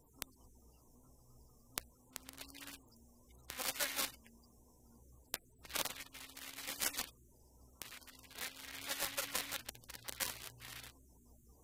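Rally car at speed heard from inside the cabin: a faint steady engine hum, broken three times by louder rushes of engine and road noise.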